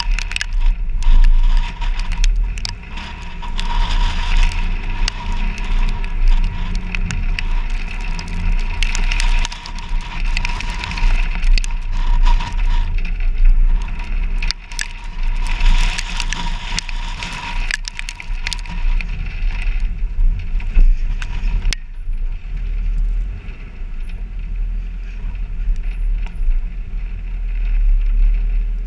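An off-road vehicle drives along a rough dirt trail, heard from a camera mounted outside on its hood. Wind buffeting and a low engine drone run underneath dense crackling from the bumpy ride. The crackle eases and the sound smooths out a little after about twenty seconds.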